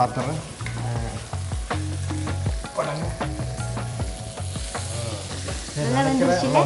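A wooden spatula stirring chicken with onions and tomato masala as it fries in a wok, with sizzling and many short knocks and scrapes of the spatula against the pan.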